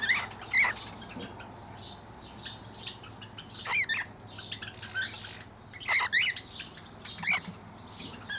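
Birds in a mixed aviary calling: a chatter of soft chirps, with a few loud, short squawking calls that dip and rise in pitch and come at uneven gaps of one to two seconds.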